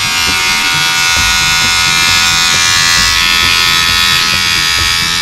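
Battery-powered SpongeBob toothbrush buzzing steadily as it runs.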